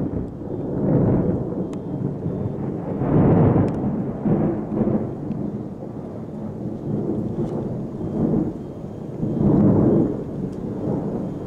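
Thunder rolling in several long swells, loudest about three seconds in and again near the end.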